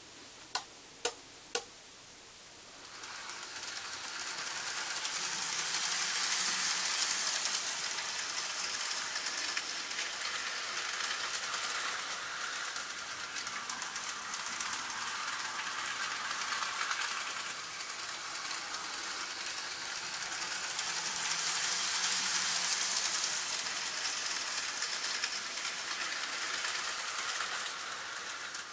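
Three sharp clicks half a second apart from the controlled layout's switching gear, then an N gauge model train running on the track: a steady whirring rattle of wheels on rail that builds up over a couple of seconds and swells louder twice as it goes round the layout.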